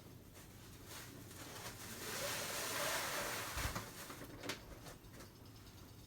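Rustling of cloth being handled, swelling into a longer rustle in the middle, then a single sharp click about four and a half seconds in.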